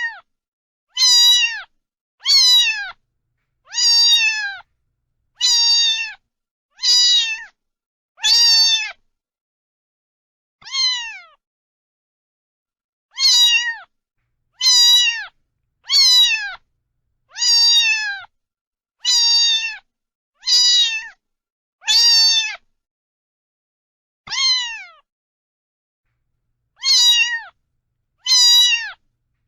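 A cat meowing over and over: about seventeen similar meows, each about half a second long and dropping in pitch at the end, coming roughly every second and a half with a few longer pauses.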